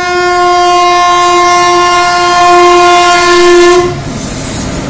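An Indian Railways electric locomotive sounds one long, loud, steady horn blast that grows louder toward its end and cuts off about four seconds in. It is followed by the rumble and wheel clatter of the locomotive and coaches passing close by.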